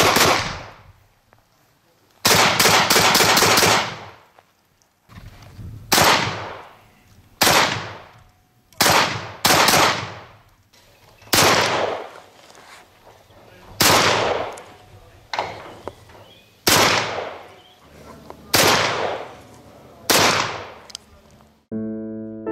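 Beretta 1301 Tactical 12-gauge semi-automatic shotgun firing: a fast string of about half a dozen shots, then single shots every one to two seconds, each trailing off in echo. Piano music comes in near the end.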